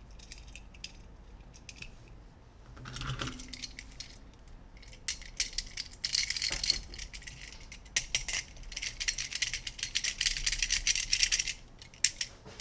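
Small hard plastic toy pieces being handled, clicking and rattling against each other, with a brief rustle about three seconds in and a dense run of rapid clatter in the second half.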